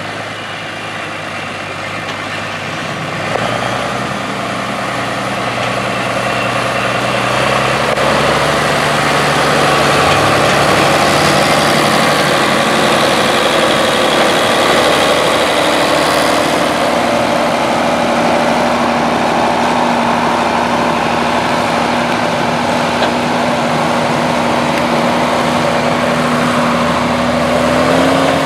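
Ford 9600 tractor's 6.6-litre six-cylinder diesel running steadily under load while pulling a loaded trailer, growing louder over the first ten seconds and then holding, its pitch shifting a few times.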